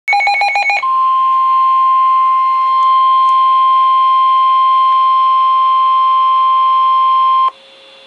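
Midland WR100 weather radio's speaker sounding a NOAA Weather Radio alert: a brief burst of rapid pulsing tones, then the steady 1050 Hz warning alarm tone held for about seven seconds. The tone cuts off shortly before the end, leaving a faint hum ahead of the broadcast voice.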